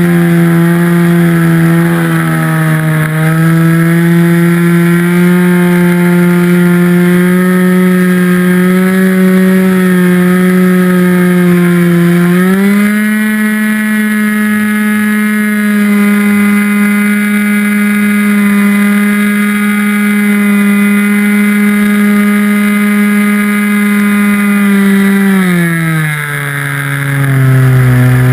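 RC airplane's motor and propeller running at close range from the onboard camera. The pitch steps up about twelve seconds in, then falls to a lower, quieter note near the end.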